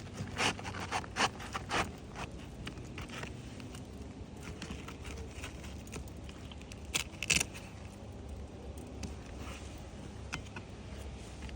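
Sharp clicks and scrapes of asphalt roof shingles being handled and pried at: a quick cluster in the first two seconds, then two louder ones about seven seconds in.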